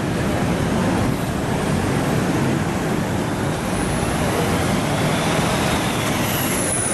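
Steady city street traffic noise, a dense low rumble of passing vehicles, with a faint high whine coming in near the end.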